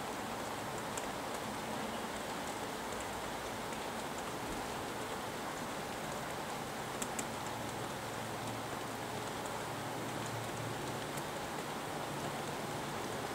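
Steady rain falling, an even hiss with occasional sharper ticks of individual drops.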